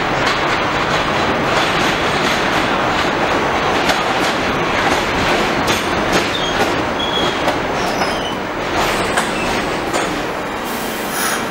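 R46 subway train pulling into an elevated station: steady rumble of steel wheels on rail with clicking over the rail joints and short, high wheel squeals in the middle. A brief hiss comes near the end as it slows.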